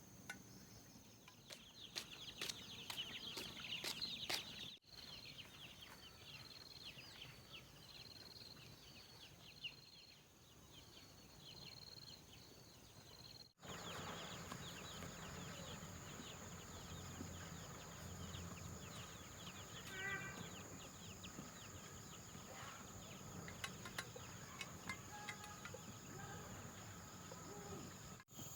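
Faint outdoor ambience of insects chirping and trilling, with a chicken calling now and then. The background changes abruptly twice.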